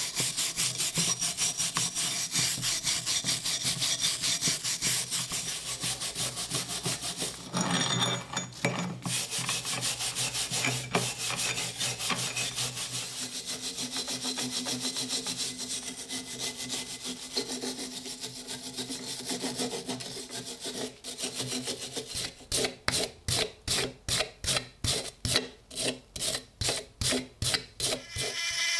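A hand file scraping back and forth over the rusty steel of an old pickaxe head in quick strokes. Near the end the strokes become slower and distinct, about three a second.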